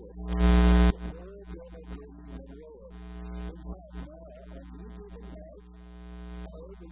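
Steady electrical mains hum, with a loud buzz lasting under a second near the start and faint wavering tones beneath it.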